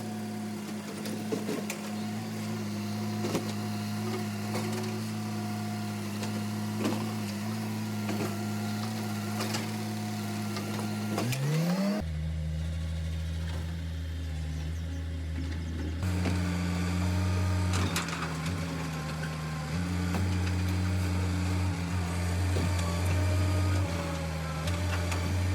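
Garbage truck engine running steadily. About eleven seconds in its pitch rises, then the sound cuts to a deeper engine note that steps up and down in pitch several times.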